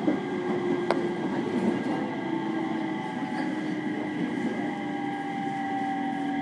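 Aoimori Railway 701 series electric train heard from inside the car, rolling slowly over pointwork. A sharp wheel click comes about a second in, and the motor whine falls gradually in pitch as the train slows.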